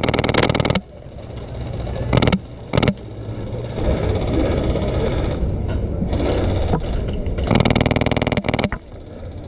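Full-auto bursts from an HPA airsoft machine gun with a Polar Star F2 engine, each a fast even rattle of shots. A burst cuts off just under a second in, two short bursts follow at about two and three seconds, and a longer burst comes near the end.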